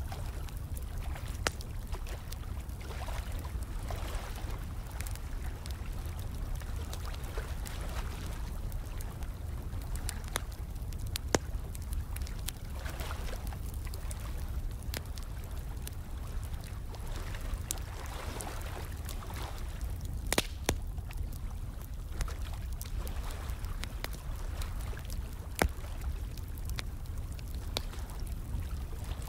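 A crackling fire with scattered sharp pops, a few of them louder, mixed with running, trickling water over a steady low rumble.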